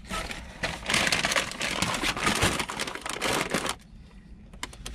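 A paper takeout bag holding tortilla chips, crinkling and rustling as it is handled and tipped. It stops about three and a half seconds in, followed by a few faint clicks.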